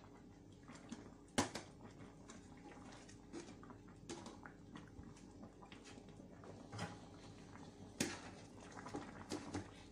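Metal spatula stirring thick glutinous rice in simmering coconut milk in a pan: soft wet scrapes and small scattered ticks, with two sharper knocks of the spatula against the pan, one early and one about 8 seconds in.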